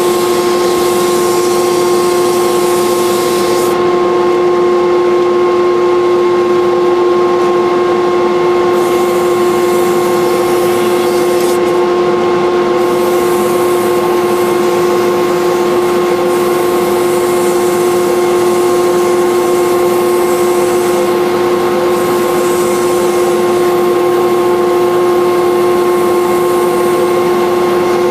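Wood lathe running with a steady whine, and the hiss of a steel tool cutting a spinning wooden handle blank; the hiss drops away briefly twice, early and around the middle, while the whine carries on.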